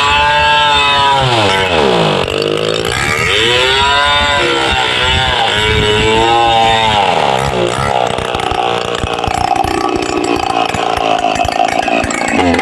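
Chainsaw engine revved up and down about three times, then running more steadily through the second half.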